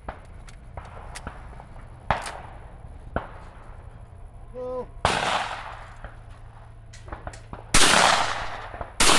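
Shotgun shots on a clay shooting course: two fainter reports in the first few seconds, then three close, loud shots about five, eight and nine seconds in, the last two a little over a second apart. Each shot rings out and dies away over about a second.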